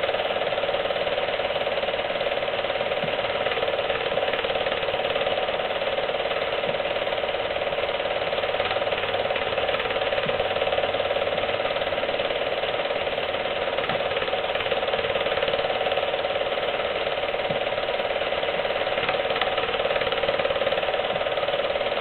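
Film projector running: a steady mechanical whir from its motor and film-advance mechanism.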